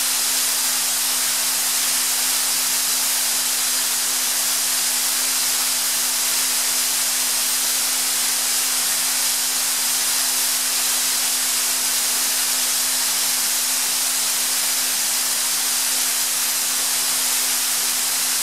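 Atlas Copco GA315 VSD FF oil-injected rotary screw air compressor running: a steady, loud rush of air noise with an even hum underneath, unchanging throughout.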